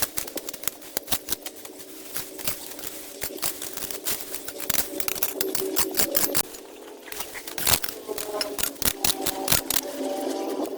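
Rapid, irregular clicking and tapping, like hand tools or debris being worked, with a faint steady tone underneath.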